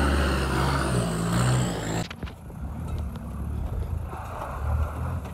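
A 4x4 dual-cab ute's engine running as it drives slowly past close by. About two seconds in, a sudden cut brings a quieter engine at low revs, as a 4x4 crawls through a deep rut.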